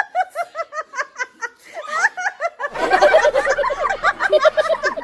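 Women laughing in quick, high-pitched bursts, growing louder and fuller, with several people laughing at once, from about three seconds in.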